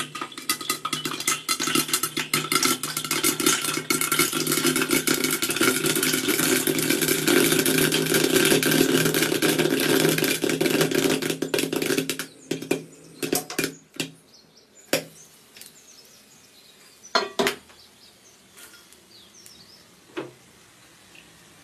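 Popcorn kernels popping in a lidded steel wok: a dense, rapid crackle of pops hitting the lid and pan, which thins out about twelve seconds in to a few scattered pops as the batch finishes.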